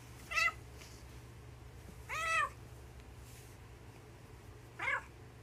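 Domestic cat giving three short meows as it is poked, spaced about two seconds apart, each rising and falling in pitch, the middle one longest. They are so clean and neat that they sound like a stock cartoon cat sound effect.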